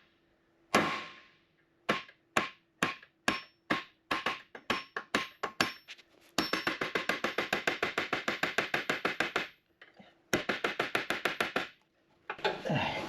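Steel hammering on a bent steel pin in a snow blade's skid mount, metal on metal with a ringing tone. Separate blows at first, coming quicker, then a fast run of strikes lasting about three seconds and a shorter fast run near the end; the pin is bent and not coming out.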